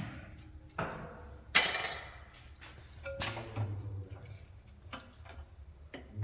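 Metal clanks and light clinks of old drum brake parts being handled and set down, with one sharp clank about a second and a half in and scattered lighter ticks after it.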